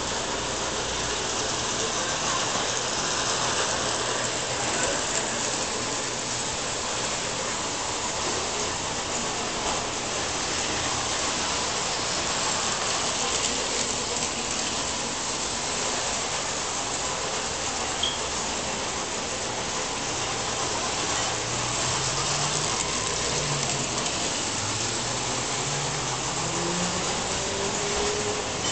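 Standard-gauge electric model train running steadily on three-rail track, a continuous rolling noise of wheels and motor. A few faint rising tones come in near the end.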